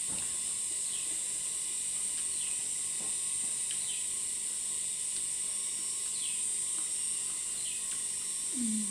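Steady, high-pitched insect drone, crickets or cicadas, with a bird giving short falling calls every second or two.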